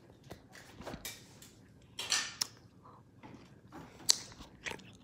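Scattered light clicks and rustling from small objects being handled, with a noisy scrape about two seconds in and a sharper click about four seconds in.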